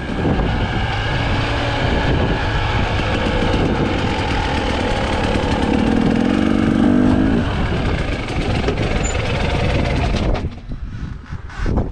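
Husqvarna TE 300i two-stroke enduro motorcycle engine running under way, revs rising and falling with the throttle; about ten seconds in the engine sound drops away abruptly, leaving a few faint clicks.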